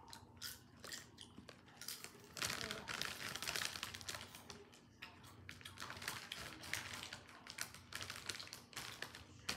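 Doritos tortilla chips crunching as they are chewed close to the microphone, with a plastic chip bag crinkling as it is handled: dense, irregular crackling clicks.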